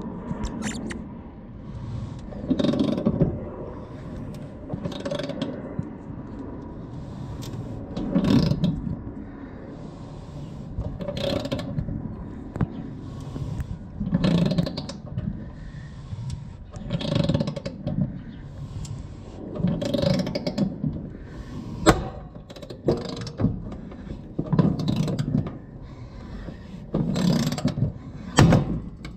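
Kobalt pass-through ratchet turning the draw stud of a Greenlee 1.5-inch knockout punch, in a stroke about every three seconds, with ratchet clicks and the steel panel wall grinding under the punch as it is forced through.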